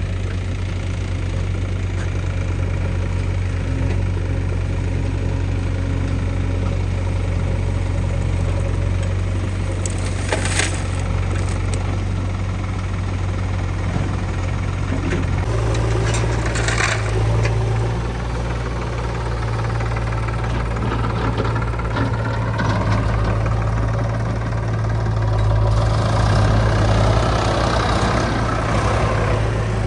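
Heavy diesel machinery engine running steadily. Its pitch steps up about halfway through, with a couple of brief knocks and wavering higher tones near the end.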